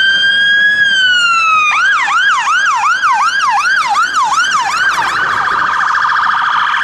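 Fire engine electronic siren sounding loudly. It holds a steady tone that slides down, then switches to a fast yelp of repeated falling sweeps, about three a second, and ends in a rapid warble.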